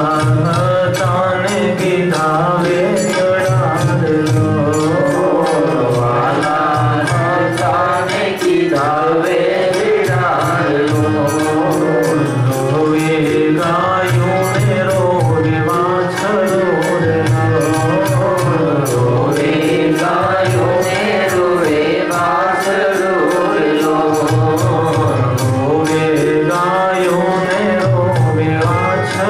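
A man singing a slow devotional bhajan into a microphone, his melody wavering and sustained, over instrumental accompaniment with a steady percussion beat.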